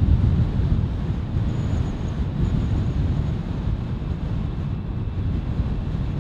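Wind rumbling on the microphone and tyre noise from a bicycle rolling along an asphalt road, heard as a steady low rumble.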